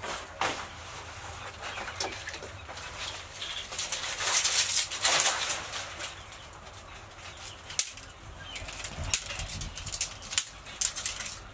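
Wet rubbing and slapping as hands work a spice paste over the skin of a large whole fish, loudest about four to five seconds in. Then a few sharp separate pops from the wood fire burning under an oiled iron karahi.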